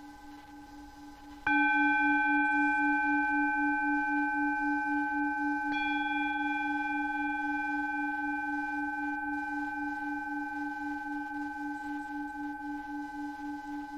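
Meditation tones: a low pulsing drone under steady higher tones, with a bell-like tone like a singing bowl struck about a second and a half in and again near six seconds, each ringing on and slowly fading. No fire crackle is heard.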